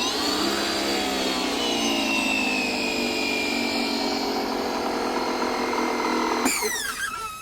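Coyardor CP2500 electric pressure washer's motor and pump starting up and running with a steady whine that sags slightly in pitch, then shutting off about six and a half seconds in with a falling wind-down. It is honestly not very loud.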